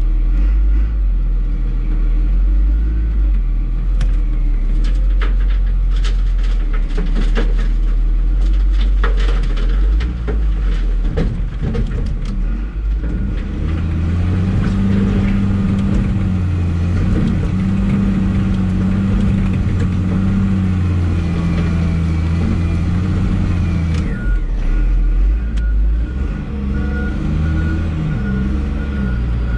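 Wheel loader's diesel engine running, heard from inside the cab, with a run of knocks and clatter in the first half. About halfway through, the engine comes up to a strong steady note and holds it for some ten seconds before easing off, and a regular beeping starts soon after.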